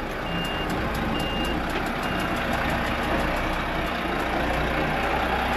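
Delivery truck's back-up alarm beeping three times, about one beep a second, then stopping a little over two seconds in. The truck's engine runs steadily underneath.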